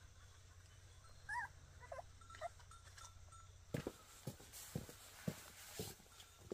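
A few short, faint animal calls, then a run of light knocks about twice a second.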